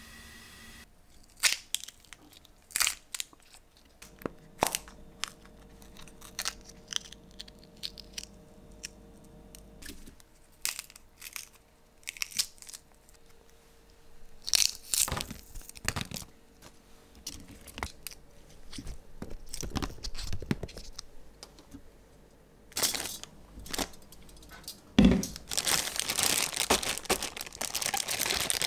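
Fresh green peas being shelled by hand: pods split open and peas drop into a plastic zipper bag, heard as scattered sharp clicks and crackles. Near the end the plastic bag crinkles steadily as it is handled by its zipper top.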